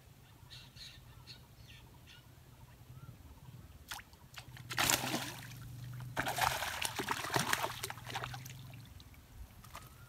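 A hooked fish thrashing and splashing at the pond surface as it is pulled in on the line, in a sharp burst about five seconds in and then a longer spell of splashing and sloshing that dies away near the end. A low steady hum runs underneath.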